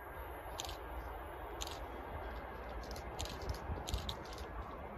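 Open-air ambience: low wind rumble on the microphone, with short high chirps of small birds now and then, several in quick succession past the middle.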